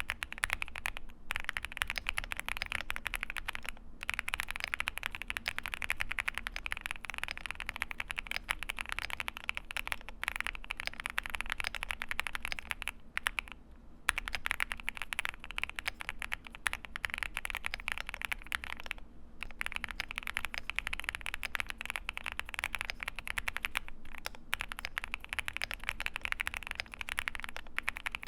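Fast typing on an IQUNIX Super Nature 80 full-aluminium custom keyboard with Moonstone switches and PBT keycaps: a dense, continuous patter of keystroke clacks, broken by a few short pauses, the longest about 13 seconds in.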